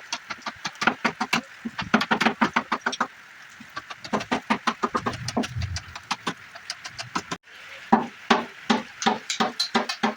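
Rapid, rhythmic knocking of hand-tool work on wood, about five sharp strikes a second with a couple of short pauses, and a brief low hum in the middle.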